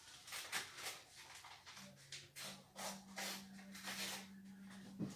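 Faint rustling, soft clicks and scrapes of small objects being handled, as someone rummages for something to write with. A steady low hum comes in about two seconds in.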